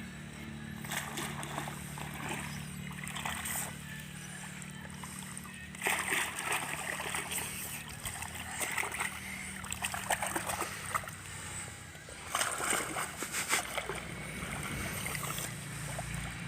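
Swimming-pool water splashing in irregular bursts as people play in it, with the biggest splashes about six seconds in and again about twelve seconds in.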